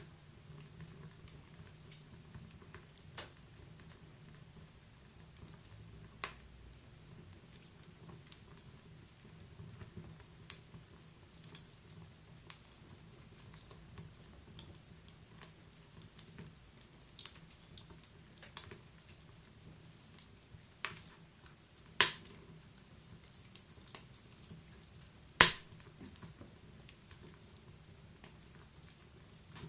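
Wood fire burning inside a stove: irregular sharp crackles and pops over a faint low rumble, with two louder pops near the end.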